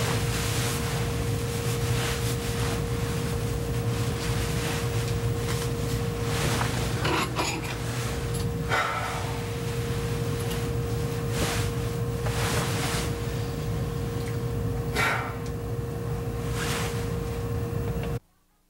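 A steady hum with a constant tone, under repeated rustling and small knocks of clothing and handling; it all cuts off suddenly near the end.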